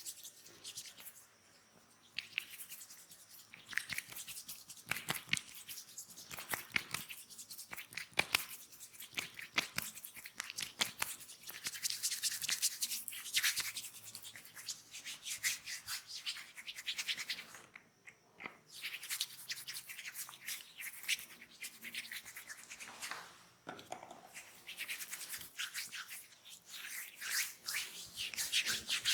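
Hands massaging oiled skin: quick, continuous rubbing and stroking friction with small clicks, pausing briefly about two-thirds of the way through.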